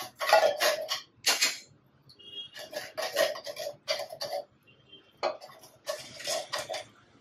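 Metal spoon scraping and knocking inside a tin can of sweet corn, clearing the last of it out into the pot: a run of short scrapes and taps in bunches.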